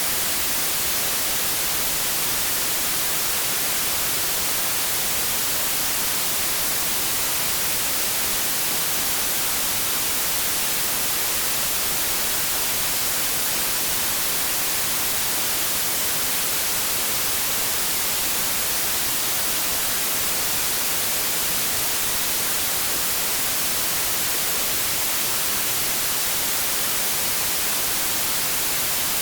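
Steady white-noise static: a constant, even hiss with no breaks or changes, weighted toward the high end.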